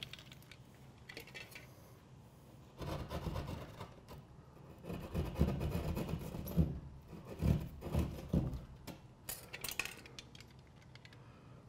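Drywall jab saw rasping back and forth through sheetrock in a few short runs of strokes, trimming the outlet-box hole to size. Near the end comes a brief plastic rattle as the outlet box is handled.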